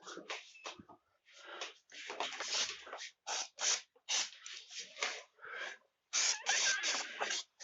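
Aerosol can of penetrating lubricant spraying onto door hinges in a series of short hissing spurts, some brief and some nearly a second long.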